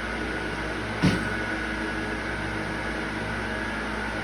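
Steady mechanical hum, like a running fan or air-conditioning unit, with a single short knock about a second in.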